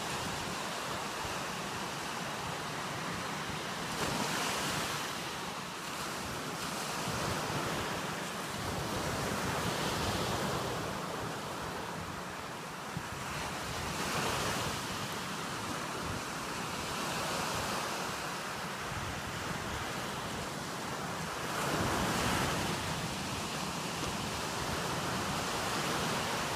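Ocean surf washing onto a sandy beach, a steady rush that swells every few seconds as each wave breaks and runs up the shore. Wind rumbles on the microphone underneath.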